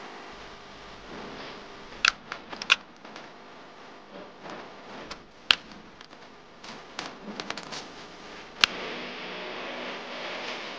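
Hands changing the disc on an angle grinder: a series of sharp clicks and knocks as the flap disc is taken off the spindle and a hook-and-loop sanding disc is fitted. A soft rubbing hiss builds near the end.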